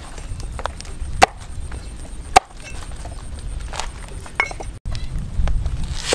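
Steel cleaver chopping a banana blossom on a wooden chopping board: a few sharp knocks of the blade hitting the board, the loudest about a second in and again a second later, with lighter taps between.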